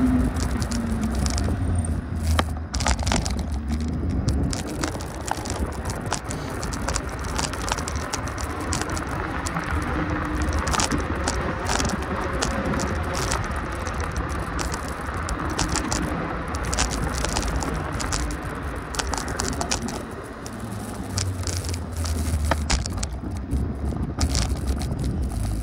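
A vehicle in motion: steady low rumble and ride noise with frequent rattles and clicks.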